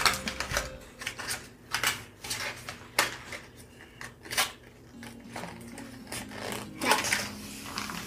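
Scattered light clicks and taps of a card cutout and small kit pieces being handled and set down on a tabletop.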